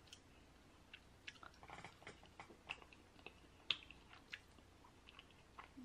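Faint chewing: a scatter of soft mouth clicks and lip smacks from a person eating chicken pot pie, with one louder smack a little past the middle.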